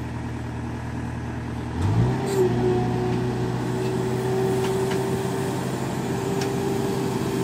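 Case 590 backhoe loader's diesel engine running under load while the backhoe arm works. About two seconds in it revs up and then holds at the higher speed. A few faint clanks come in the later part.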